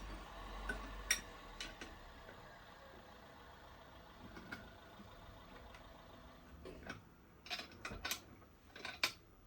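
Scattered sharp metallic clicks and clinks, a few at first, then a quick run of them near the end, as a bearing race is pressed into a wheel hub with a makeshift press tool.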